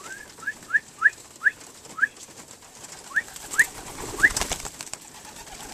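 Young racing pigeons giving about nine short, high, rising squeaky peeps as they crowd a hand to peck raw peanuts. About four seconds in there is a brief scuffle of sharp pecks and wing rustle.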